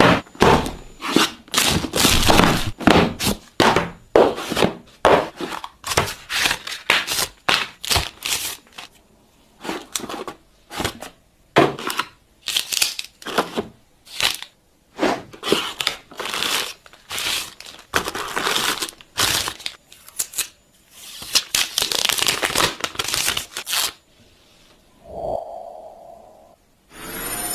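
A phone's retail box and packaging being opened and handled by hand: many short tearing, crinkling and crackling sounds with knocks and scrapes, one after another.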